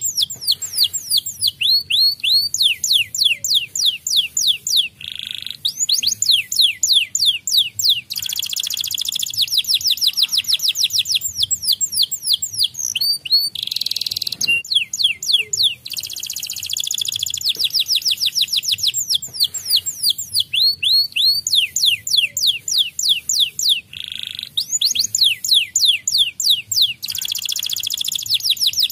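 White domestic canary singing: long runs of fast trills, each made of quickly repeated falling notes, switching from one trill to the next every few seconds with brief breaks between runs.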